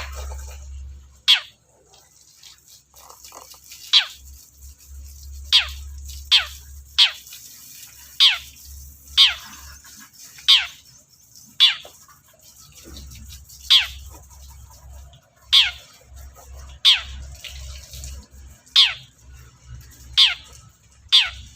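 Long-tailed shrike (cendet) calling: a series of about fifteen short, sharp notes, each sliding quickly downward in pitch, repeated at uneven intervals of about a second.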